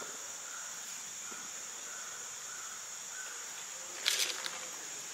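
A steady, high-pitched insect chorus, likely crickets, with a short, sharp burst of noise about four seconds in.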